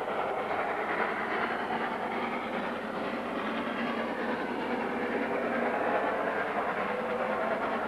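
Narrow-gauge steam train hauled by locomotive 99 1774 running unseen, a steady rail running noise that grows slightly louder as it approaches.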